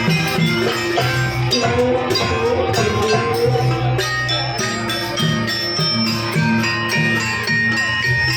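Jaranan Buto accompaniment music: an East Javanese ensemble of drums and tuned gong-chime percussion playing with a steady, repeating beat, with jingling bells in it.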